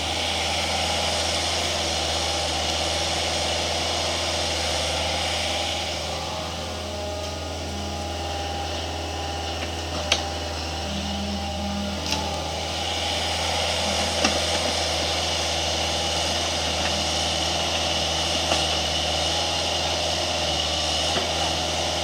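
An engine running steadily at an even speed, with a few faint clicks or knocks along the way.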